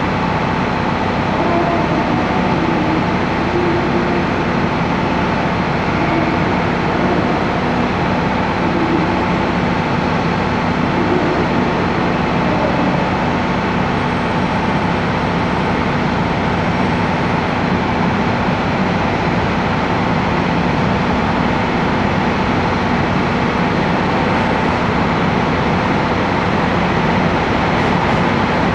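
Steady train noise at a railway station: rolling cars and running machinery with a constant hum underneath, at an even loudness throughout.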